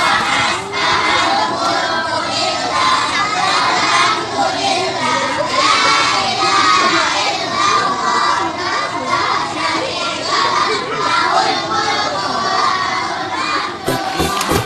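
A large group of children shouting and chattering together, many voices at once. Music with a steady beat comes in near the end.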